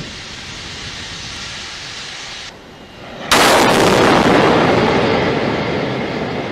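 A steady hiss, then about three seconds in the sudden, very loud blast of the SpaceX Super Heavy booster exploding at its base on the launch pad, followed by a long rumbling fade.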